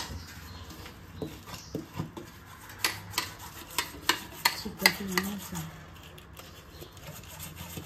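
Steel spoon scraping and tapping a steel plate while grated jaggery is pushed off it into a steel pan. The sharp clinks and scrapes come thickest in the middle.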